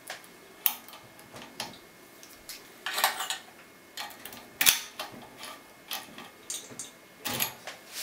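Key slid in and out of a GTV 7030 APS pin-tumbler cylinder, with metal tools handled around it: a string of sharp metallic clicks and short scrapes as the key rides over the pins. The loudest click comes about halfway through.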